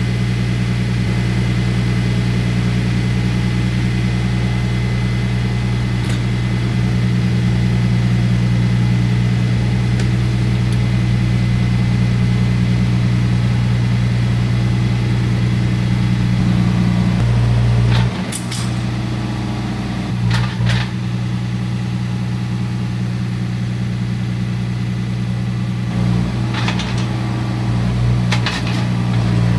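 John Deere 4044M compact tractor's diesel engine running steadily. About two-thirds of the way in it drops and changes note, and a few sharp knocks and clanks come over it.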